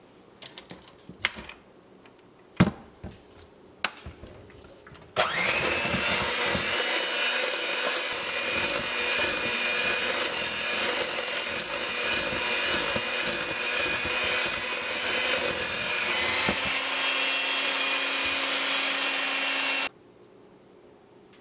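A few clicks and knocks, then an electric hand mixer starts about five seconds in and runs steadily with its beaters whipping a thick lotion in a glass bowl, stopping suddenly near the end.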